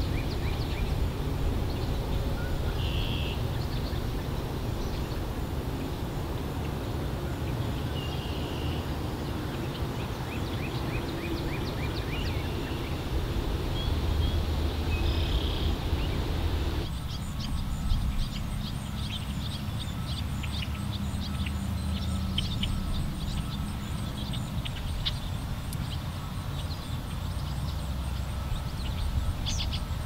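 Outdoor ambience: small birds chirping over a steady low rumble. About halfway through, the background changes abruptly and the short, high chirps come more often.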